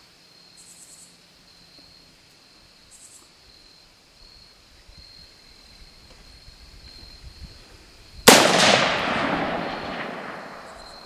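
Faint steady insect buzz, then about eight seconds in a single CMMG AR-15 rifle shot (5.56/.223) cracks out and its report rolls away in echo for about three seconds. No tannerite blast follows: the tennis ball on the water heater is not set off.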